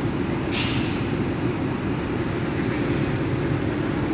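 Steady low rumble of a running vehicle, with a short hiss about half a second in.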